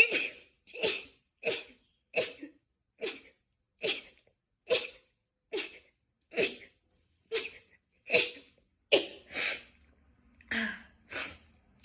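A person sneezing over and over in a rapid-fire fit: about fifteen short, sharp sneezes in a row, a little more than one a second, with no pause between them.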